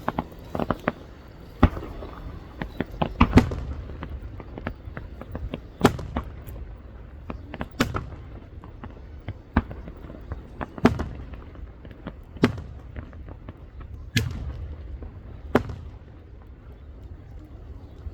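Aerial fireworks shells bursting: a string of sharp booming bangs at irregular intervals a second or two apart, several in a quick cluster about three seconds in, each trailing off in a low rolling echo.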